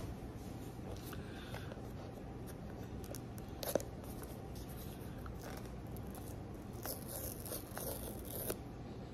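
The paper tear-strip seal being pulled off an iPhone box, a rasping tear lasting a second or two near the end. About a third of the way in there is a single sharp click, and a low steady hum runs underneath.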